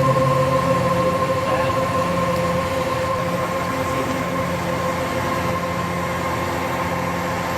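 Heavy construction machinery running steadily, an engine hum under a constant high-pitched whine.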